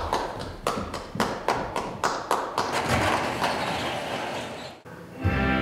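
Scattered applause from a small audience, the separate claps distinct, thinning out and stopping about five seconds in.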